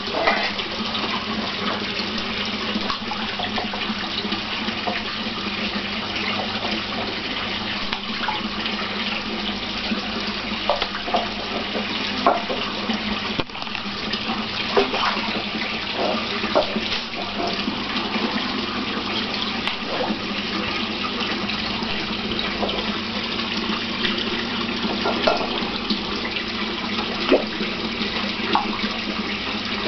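Steady rush of running water in a large indoor fish pond, with a low steady hum underneath and a few brief splashes now and then.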